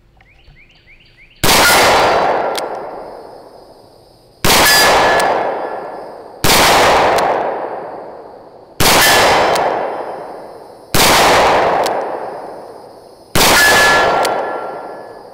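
Smith & Wesson Model 610 10mm revolver fired six times in single action, slow aimed shots about two to two and a half seconds apart, each report trailing off in a long echo. A short metallic ring follows some of the shots.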